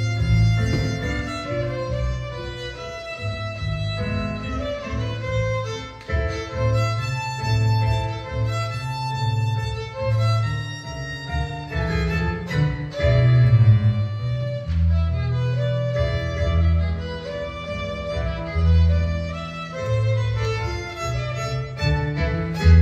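Violin playing a melody, with low sustained accompaniment notes underneath.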